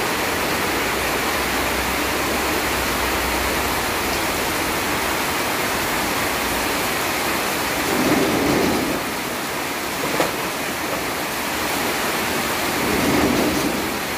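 Heavy rain falling steadily, with two brief swells in the rush about eight and thirteen seconds in and a single click near ten seconds.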